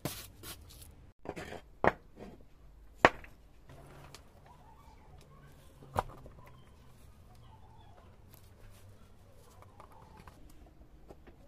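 A steel pick scraping and picking rust and grime out of the body of a rusty metal bubble level: three sharp metal clicks, about two, three and six seconds in, with faint, irregular scratching between them. A few quick wire-brush strokes come at the very start.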